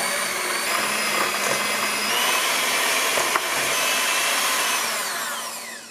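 Electric hand mixer with wire beaters running steadily with a high whine as it creams softened butter and sugar in a stainless steel bowl. Near the end it is switched off and the whine falls in pitch as the motor winds down.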